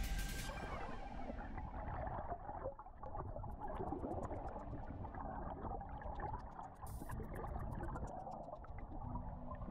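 Muffled rushing and gurgling of river water as heard underwater.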